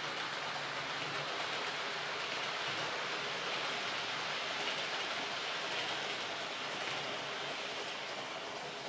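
H0-scale model train running on the layout's track, a steady rushing noise.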